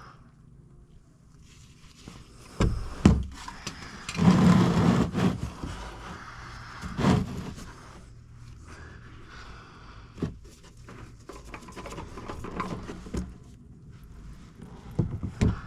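Work sounds from taking off the old oil filter under a Hyundai 2.4 GDI engine: a few sharp knocks of tools and metal, and a longer scraping rush about four seconds in, with more knocks near the end.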